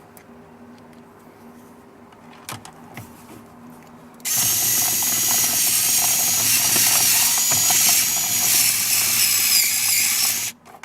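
A cordless drill/driver runs steadily for about six seconds, starting about four seconds in and stopping just before the end, driving a screw back into the steering column cover. A few light clicks come before it.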